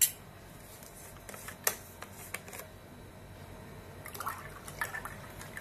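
Water poured from a plastic bottle into a glass of jaljira with ice, splashing briefly about four seconds in. Before it, a few sharp clicks and knocks, the loudest right at the start and another under two seconds in.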